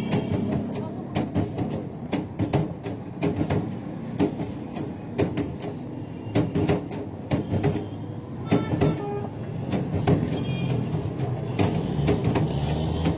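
Hand-lever french fry cutter being worked again and again, raw potatoes pressed through its blade grid: a quick, uneven run of clacks and knocks, about two a second, over a steady low rumble.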